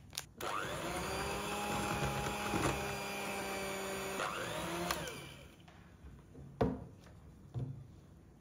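Electric kitchen mixer motor spinning up and running steadily for about four seconds. It changes speed and then stops about five seconds in. A couple of sharp knocks follow.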